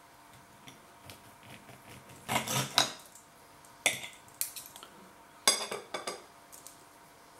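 Steel knife and fork scraping and clinking against a plate while cutting through oven-baked sausages, in three short bouts about two, four and five and a half seconds in.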